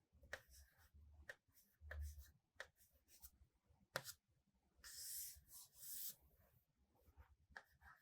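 Faint writing sounds: short taps and scratches of someone writing, with a longer scratching stroke about five to six seconds in.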